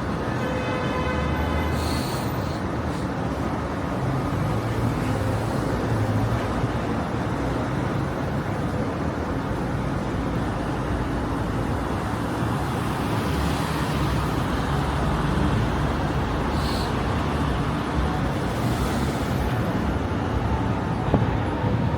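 Steady city street traffic: cars and buses running by with a continuous low rumble. Two short high hisses cut through it, one early and one past the middle.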